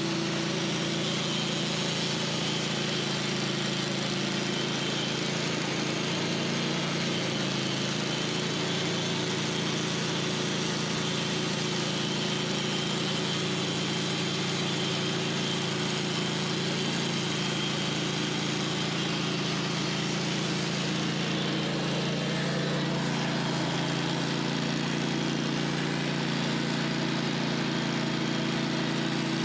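Wood-Mizer portable band sawmill running steadily: an even engine drone with a steady high whine above it.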